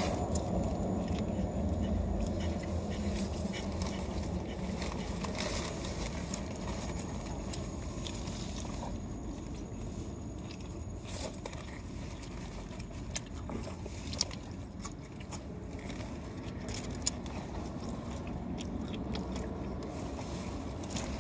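Close-up biting and chewing of pizza, with short wet mouth clicks and smacks scattered through, over a steady low rumble in a car cabin.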